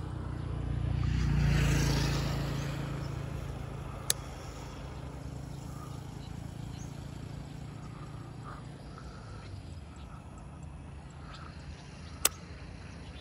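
A motor vehicle's engine passing by, swelling to its loudest about a second and a half in and fading to a faint low hum. Two sharp clicks come through, one about four seconds in and one near the end.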